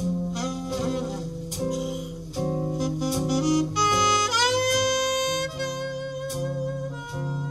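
Small jazz group playing a ballad: an alto saxophone carries the melody and scoops up into a long held note about four seconds in, over sustained chords, plucked double bass notes and light cymbal taps. Captured on an iPhone 12 Pro.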